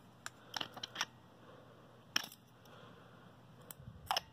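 Small sharp clicks and taps, about seven of them at uneven intervals, as the metal parts of a Surefire flashlight are handled: its body, head and LED drop-in module knocking together in the hands.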